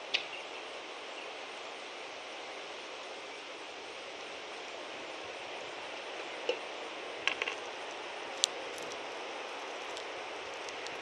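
Steady background noise with a few short, sharp clicks and taps about six and a half to eight and a half seconds in, from a northern cardinal pecking at sunflower seeds on the wooden feeder tray.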